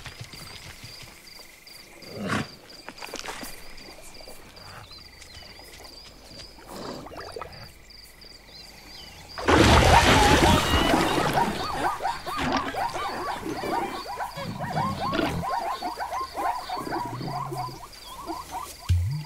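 Cartoon waterhole sound design: a steady insect hum with a few soft drinking sounds from zebras at the water, then a sudden loud splash about nine and a half seconds in as a creature bursts out of the waterhole, followed by a long chorus of rapid, frantic animal cries as the startled zebras scatter.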